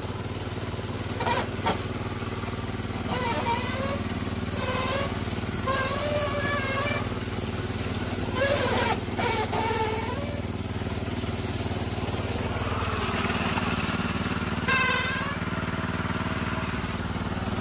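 Small engine of a lifted golf cart running steadily at low speed as the cart rolls down a dirt trail.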